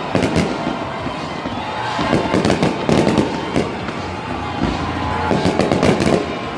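Fireworks display: aerial shells bursting and crackling in rapid clusters of sharp bangs, densest about two seconds in and again near the end.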